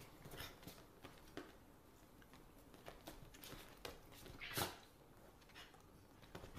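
Faint scuffling and patting as a dog and a cat play-fight on a leather couch, with irregular soft rustles and one brief louder scuff about four and a half seconds in.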